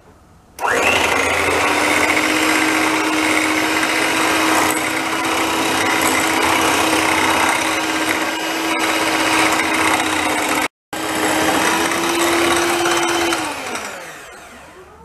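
Electric hand mixer with twin wire beaters whisking eggs and sugar in a glass bowl: a steady motor whine that starts abruptly about half a second in. Near the end the motor's pitch falls as it winds down and stops. The mixture is being beaten to a light, fluffy foam for a sponge cake.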